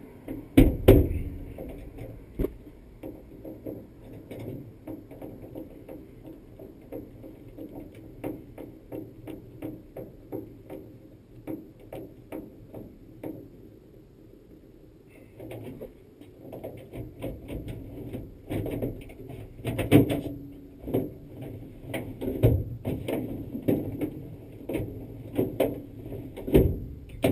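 Irregular run of light metallic clicks and knocks from hand work fitting a truck door handle, often several a second, with a few louder knocks about a second in and in the last third.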